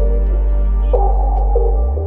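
Ambient background music: a sustained low drone with a few short melodic notes over it.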